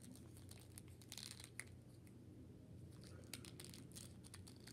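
Faint crinkling and small scattered clicks of a plastic action figure and its packaging being handled, over a low steady room hum.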